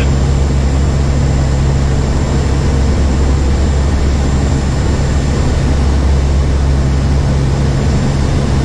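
Steady drone of a four-engine turboprop hurricane hunter aircraft in flight, heard inside the cabin: engine and propeller hum with a constant rush of noise, and a thin high whine.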